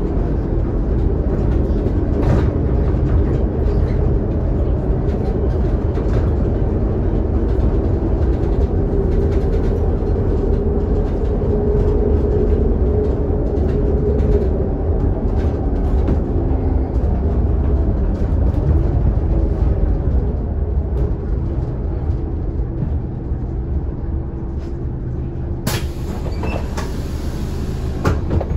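Scania K280UD double-decker bus's five-cylinder diesel and drivetrain running under way, heard from the lower deck as a steady low rumble with engine tones that rise and fall with speed. Near the end a sudden sharp sound cuts in.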